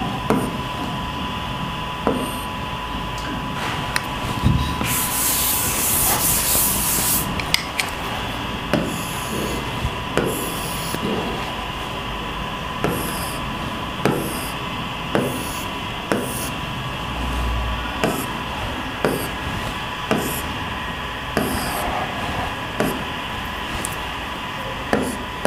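Marker pen rubbing and squeaking on a writing board as a diagram is drawn, in short strokes about once a second. About five seconds in, a hissing wipe runs for a couple of seconds as the board is erased. A faint steady high tone hums underneath.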